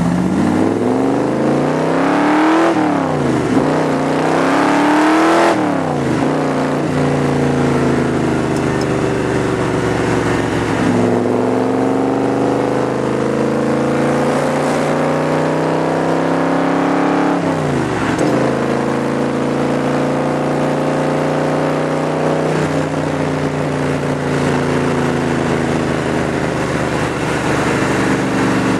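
Superformance Cobra's 7.0-litre V8 accelerating through the gears, heard on board the open roadster: the engine note climbs and drops at two quick upshifts in the first few seconds, then pulls in two longer, gentler climbs, each ending in a shift, before settling to a steady cruise near the end.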